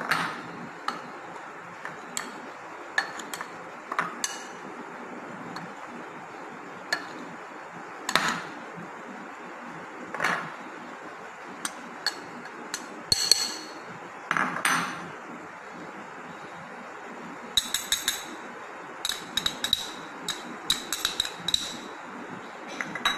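Metal spoon clinking and scraping against a glass mixing bowl while stirring dry cocoa powder and flour, in scattered single taps with a quick run of clinks near the end.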